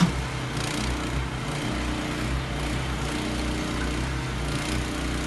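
Mini excavators' small engines running steadily while they dig in brick rubble, with one sharp knock right at the start.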